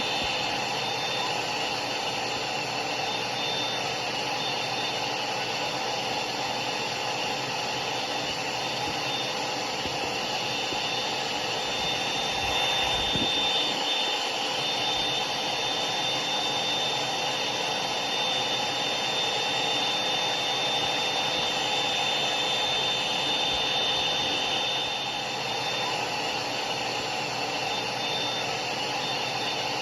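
Hair dryer running steadily: a continuous rush of air with a thin, high motor whine over it. It grows slightly louder a little under halfway through and eases back near the end.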